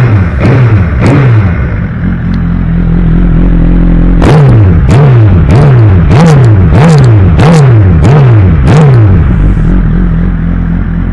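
Suzuki GSX-R1000R inline-four with a Yoshimura slip-on muffler, revved in short throttle blips while standing in neutral. A few blips and a steady idle are followed, from about four seconds in, by eight quick blips in a row, roughly two a second, each falling back toward idle. It then settles to a steady idle.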